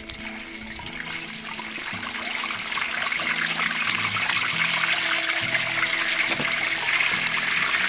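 Two whole snakehead fish deep-frying in a wok of hot oil. The sizzle builds over the first couple of seconds as the fish go in, then stays loud and steady.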